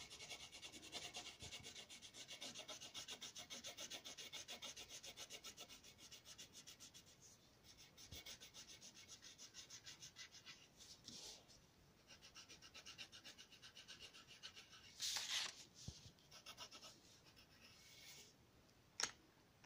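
Colored pencil shading on paper in fast, even back-and-forth strokes, several a second: a faint scratching that comes in spells with short pauses and a few louder single scrapes near the end.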